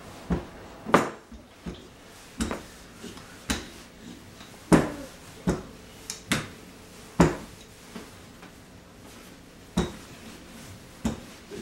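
Wooden rolling pin rolling out pie dough on a kitchen countertop, with about a dozen sharp knocks, roughly one a second, as the pin bumps the counter.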